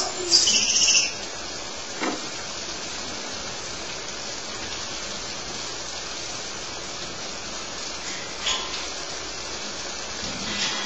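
A squirrel monkey gives a short, high-pitched squeal just under a second in, over a steady rushing hiss. A few faint clicks follow later.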